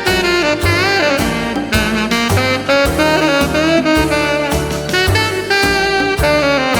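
Background music: an upbeat jazz tune with a saxophone melody over a steady bass and drum beat.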